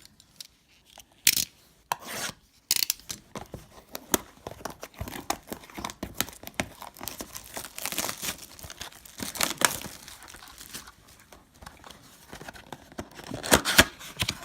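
A trading card box being torn open, with its packaging crinkling as the packs are handled. The tearing and crinkling are irregular, with sharp bursts about a second in and loudest near the end.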